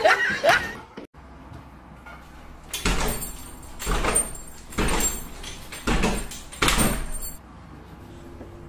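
A door being worked back and forth, making five noisy rubbing sounds about a second apart.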